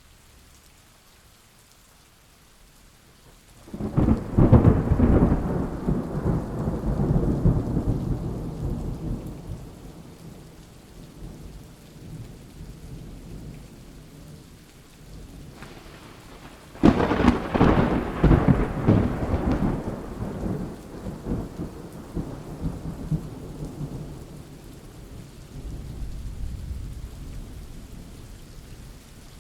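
Thunderstorm: steady rain with two loud claps of thunder, one about four seconds in and another near the middle, each rolling off into a rumble over several seconds, and a fainter rumble near the end.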